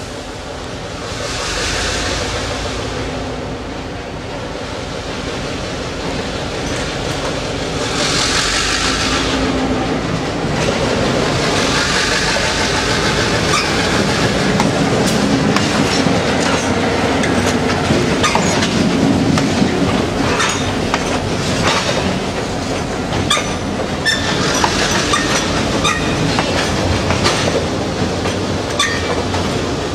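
Vermont Railway diesel locomotive approaching and running past, then a train of tank cars rolling by with wheels clicking over the rail joints, the sound growing louder as the train draws level.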